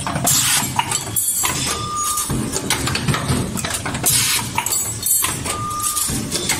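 Automatic wire forming machine running its bending cycle on seat lift lever wire, over a steady low hum. Roughly every three and a half to four seconds a burst of hissing is followed by a short steady beep-like tone, with clinks of the tooling in between.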